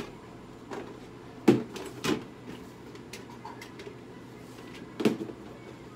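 A few sharp knocks and clunks, the loudest about one and a half seconds in and another about five seconds in, over a faint steady low hum.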